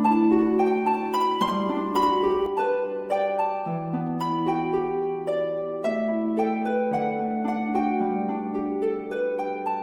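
Background music: gently plucked harp-like notes in an even, flowing pattern over a held bass note.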